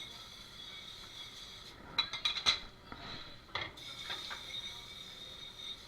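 Dishes and metal utensils clattering and clinking as they are handled at a restaurant dish station, with a quick cluster of clanks about two seconds in and a few more later, over a faint steady high whine.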